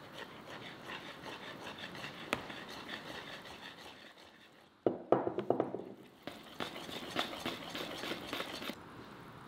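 Metal wire whisk stirring dry corn-flour mix in a bowl: quick, scratchy rubbing strokes, with a louder burst of strokes about five seconds in and a brief pause just after, stopping shortly before the end.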